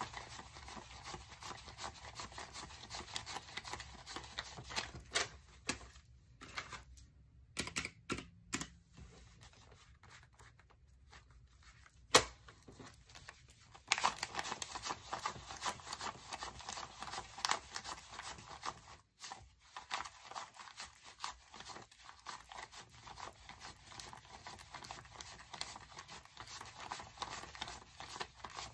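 Stack of US twenty-dollar bills being counted by hand, each paper note flicked and rustled off the stack in quick succession. Partway through the counting eases off for several seconds, and one sharp click is heard about twelve seconds in before the rapid flicking resumes.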